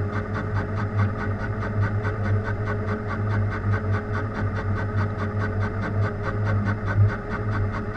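Machine tool running during machining of a metal hose adapter: a steady low hum with a held tone and a fast, even pulsing.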